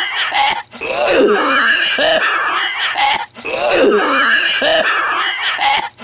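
A man's exaggerated, gurgling smoker's cough: hoarse hacking mixed with rising and falling throaty groans. The same stretch repeats about every two and a half seconds, with a brief break between repeats.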